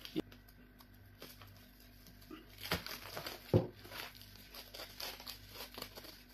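Thin clear plastic wrap crinkling and crackling in short irregular spells as it is peeled off a ball of pounded yam fufu, busiest midway, with one soft thump about three and a half seconds in.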